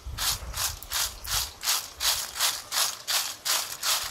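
Crisp fried raw-banana chips being tossed in a stainless steel mesh strainer, rattling against the mesh and each other in quick even shakes, about two or three a second.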